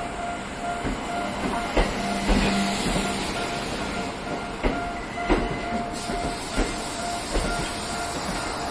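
Subway train rolling across a level crossing, its wheels knocking over the rail joints and crossing rails in a string of irregular clacks over a steady rumble. A thin steady tone sounds underneath.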